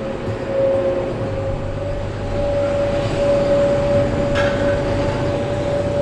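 Jet airliner engines running steadily at low power: a low rumble with a steady whine over it, and a brief click about four and a half seconds in.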